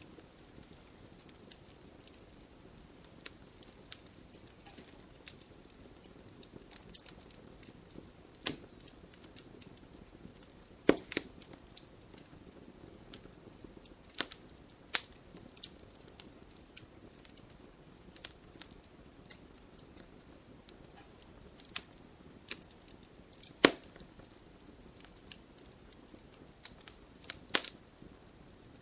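Wood fire crackling in a fireplace: a soft steady hiss under scattered sharp pops and snaps, a few of them much louder than the rest.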